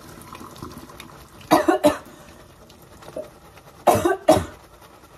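A person coughing in two fits of two quick coughs each, about a second and a half in and again about four seconds in, over faint trickling of water draining from a colander.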